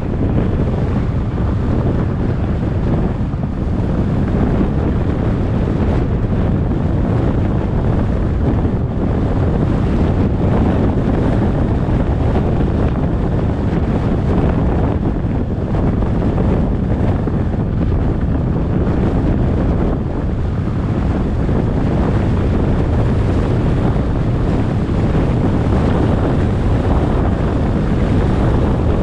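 Steady wind and road noise from a car driving at speed, with wind buffeting the microphone.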